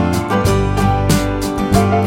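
Upbeat background music with plucked and strummed guitar and a steady beat.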